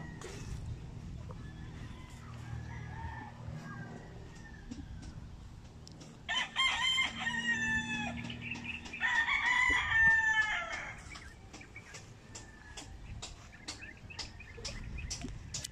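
Gamecocks crowing: two long crows about three seconds apart in the middle, each falling in pitch at the end, over a faint background with a few short ticks near the end.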